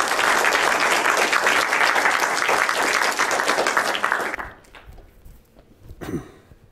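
Audience applauding, the clapping dying away about four seconds in; a brief low thump near the end.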